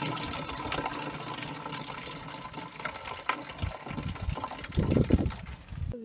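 Water pouring in a stream into a watering can, a steady splashing fill. A few louder low bumps come between about three and a half and five seconds in.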